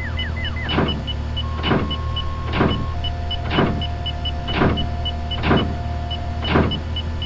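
Layered machine sound effects: a steady low electric hum with a swelling whoosh that repeats about once a second, over faint regular ticking and a held tone.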